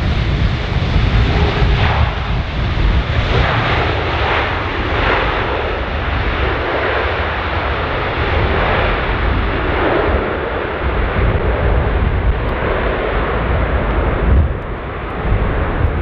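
Airbus A330 jet engines during the landing rollout on a wet runway, a steady loud rush with heavy wind buffeting on the microphone underneath.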